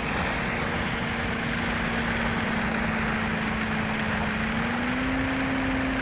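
Car engine running steadily under a constant hiss, its hum rising slightly in pitch about five seconds in.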